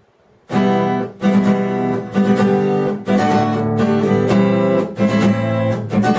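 Acoustic guitar strumming chords in a steady rhythm, starting about half a second in: the instrumental intro of a song.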